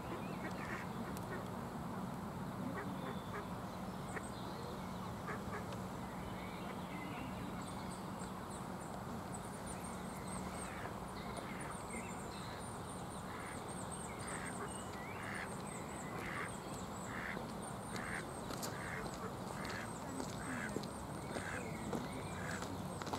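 A duck quacking in a run of short calls, a little under two a second, from about ten seconds in, over steady background noise. A small bird chirps high above it, and a low hum fades out after the first few seconds.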